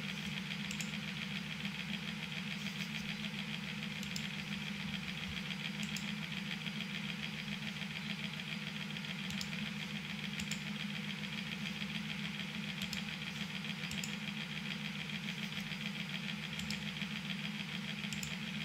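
Steady low machine hum, with faint clicks scattered through it.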